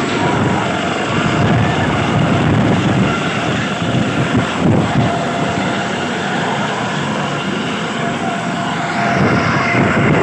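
Dauphin-family twin-turbine helicopter with its rotors running just after touchdown: a loud, steady rotor and turbine din, with the downwash blowing across the microphone.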